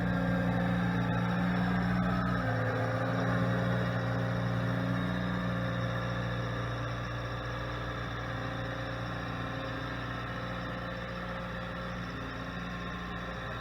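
Bobcat T66 compact track loader's diesel engine running steadily, with a change in engine note about two and a half seconds in.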